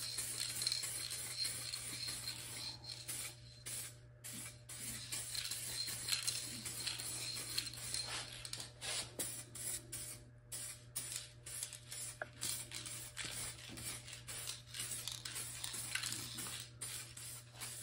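Aerosol spray can hissing in short passes with brief gaps as it lays a light first coat of acrylic enamel on a truck's cab corner. A steady low hum sits underneath.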